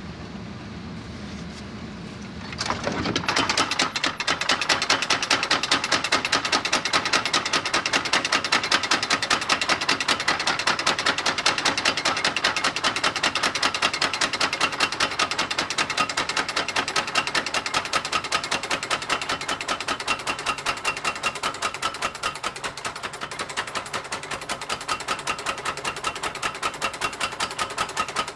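Mechanical power hammer pounding red-hot knife steel in a fast, even run of blows that starts about three seconds in, over a low steady hum. This is the forge-welding stage, where two kinds of steel are laminated into one blade blank.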